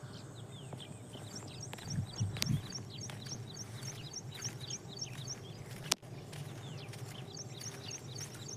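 A bird chirping over and over, short high falling notes about three a second, with a pause near the end, over a steady low hum. A sharp click sounds about six seconds in.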